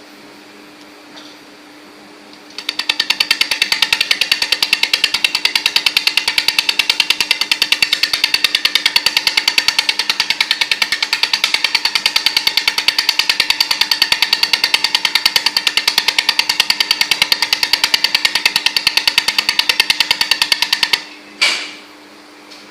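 Laser welder firing a rapid, even train of sharp ticks for about eighteen seconds while welding a weighing lifting ring, over a steady machine hum. The ticking stops near the end and is followed by a short burst of noise.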